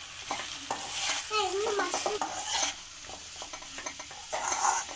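Metal ladle stirring and scraping freshly added sliced mushrooms through onion-tomato masala in an aluminium kadai, over a steady sizzle of frying oil.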